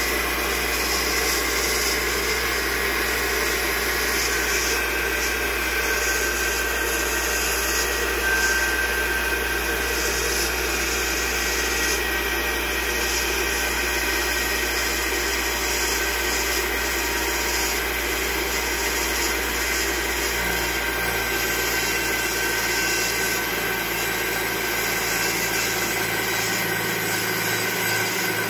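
Dumore No. 44 tool post grinder running steadily on a lathe, its fine-grit wheel grinding the crankpin journal of a Sea-Doo 4-TEC crankshaft as the crank turns. This is a light regrind of a scored journal, taking it down to a half-millimetre undersize.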